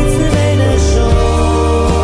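Background music: held chords over a bass line that moves about once a second, with no clear singing.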